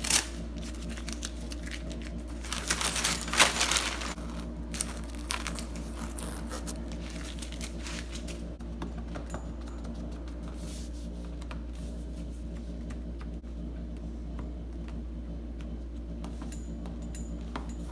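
Vinyl upholstery sheet being handled and pressed down onto a door panel by hand: crinkling and rustling with scattered light clicks, busiest around three seconds in. A steady low hum runs underneath.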